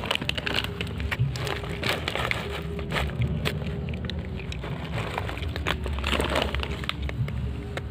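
Two cats crunching dry kibble: a quick, irregular run of small crunches and clicks as they chew.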